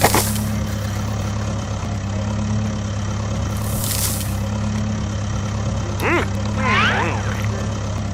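Heavy truck engine idling steadily with a low hum, with short hisses at the start and again about four seconds in. A brief bending, voice-like sound comes near the end.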